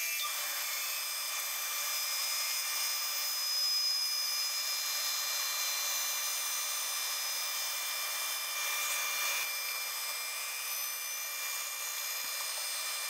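Bandsaw with a half-inch, 18-teeth-per-inch blade running and slicing thin inlay strips off a laminated wood board. The audio is sped up to five times actual speed, so the motor and blade come through as a high, steady sound of several held tones with nothing deep in it.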